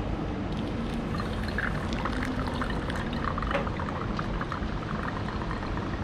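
Hot water poured from a paper cup onto ground coffee in a paper pour-over filter: a small first pour that wets the grounds for the bloom.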